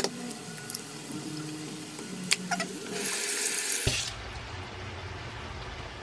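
Water from a kitchen tap running into a sink: a loud hiss about three seconds in, then a steady rush. Before it, a few sharp clicks and faint background music.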